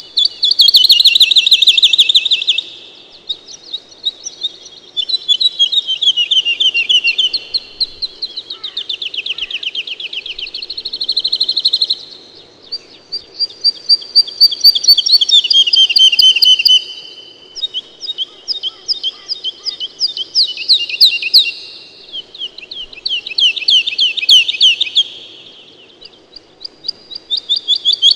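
Songbirds singing in repeated fast, rattling trilled phrases of a few seconds each, about eight in a row with short pauses between them.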